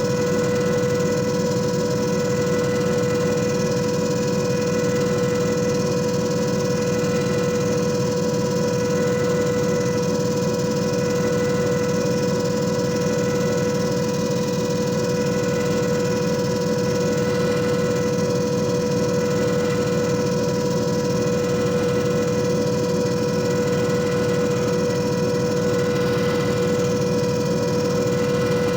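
JFJ Easy Pro disc repair machine running, its motor giving a steady hum with a constant whine over a rapid low flutter, unchanging throughout.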